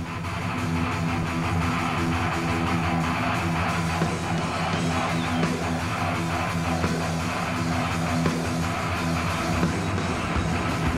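Thrash metal band playing live: heavily distorted electric guitars riffing fast and steadily over bass and drums.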